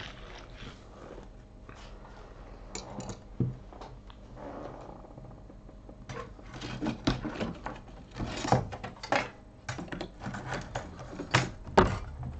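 Irregular clicks, knocks and short scraping noises, sparse at first and then busier and louder about halfway through.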